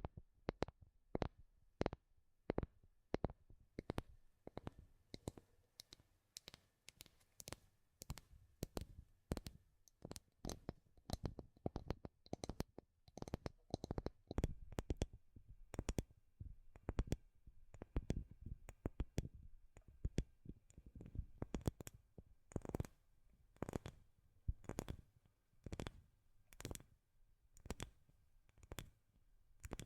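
Tapping on a wooden surface: quick, irregular taps, a few a second, some in rapid clusters.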